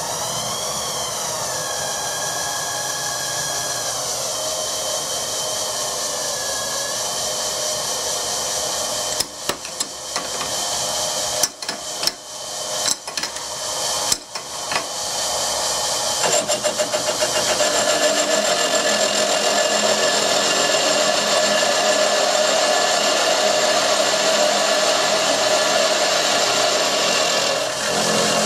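Vertical milling machine spindle running slowly with a 1-inch cutter, its motor whining; about nine seconds in the cutter starts catching the cast-iron casting in irregular bites, and from about sixteen seconds it is in a full, steady, louder cut across the cast-iron face.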